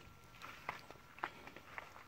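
Faint footsteps on gravel, a few short irregular steps.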